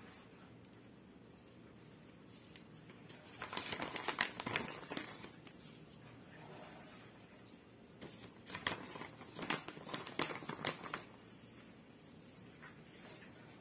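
Crinkling and rustling of plastic and paper as grated cheese is sprinkled and pressed onto bread dough with a disposable plastic-gloved hand. It comes in two spells, one about three seconds in and another from about eight seconds in, with quiet in between.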